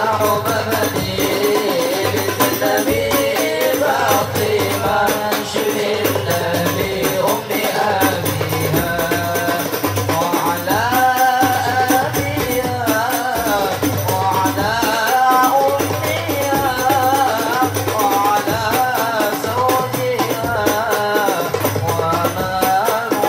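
Group of boys singing an Islamic sholawat qasida in unison into microphones, over frame drums beating a steady repeating rhythm.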